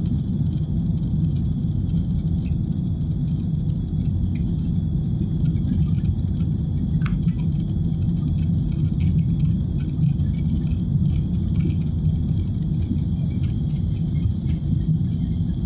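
Steady low rumble of an Airbus A320's jet engines and airflow, heard inside the passenger cabin during the climb after take-off.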